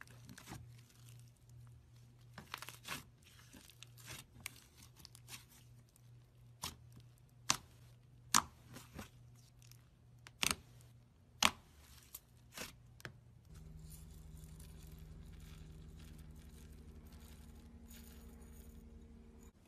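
Hands squeezing and folding thick slime, giving sharp pops and snaps as air pockets burst, several of them loud. About two-thirds of the way in it switches to a steady low hum with faint crinkling.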